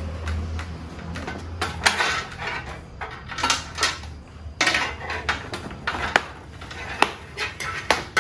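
Handling noise from fitting intercom parts into a motorcycle helmet: irregular light plastic clicks, taps and rustling as the speaker and cables are pressed and moved around. A low hum sounds under the first half and fades out about halfway.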